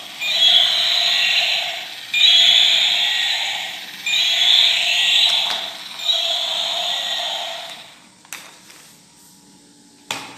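Battery-operated toy dinosaur playing its electronic roar sound effect four times, each lasting nearly two seconds and starting every two seconds; it stops about eight seconds in. A couple of sharp plastic clicks follow.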